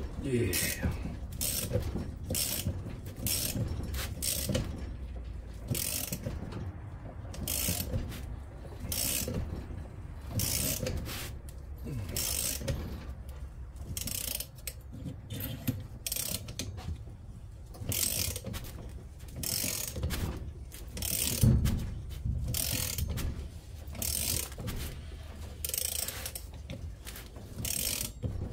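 Socket ratchet wrench being worked in repeated strokes, a short clicking rasp on each swing, roughly one a second.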